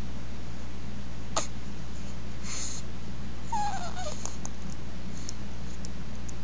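Newborn baby's brief whimper: one short squeak falling in pitch about three and a half seconds in. A sharp click comes earlier, over a steady low hum.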